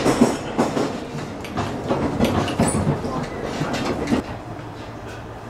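Interior of a moving passenger train carriage: a steady rumble with frequent short knocks and rattles of the car, under passengers' chatter, easing somewhat about four seconds in.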